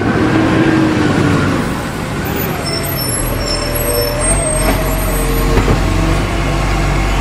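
Diesel engines of DAF semi-trucks running as a convoy of trucks drives past one after another, a steady low drone with engine tones shifting in pitch.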